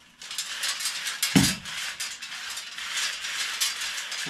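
3/8-inch aluminum tubing drawn through a 3D-printed bearing-roller tube straightener: a continuous scraping, rubbing noise of the metal tube sliding between the rollers, starting a moment in, with a single knock about a second and a half in.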